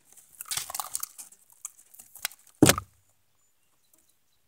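Rustling handling noise and a few small clicks as a freshly landed pike is handled in a canoe, then one heavy thump about two and a half seconds in, the loudest sound.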